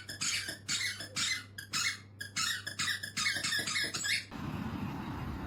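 A rapid run of short, high squeaks, several a second, that stops abruptly about four seconds in. A steady hissing rush takes over near the end.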